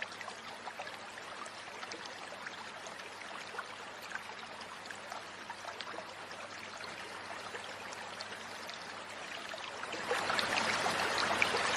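Shallow stream running over stones, an even water rush with many small splashes and drips from wading in it. It gets suddenly louder about ten seconds in.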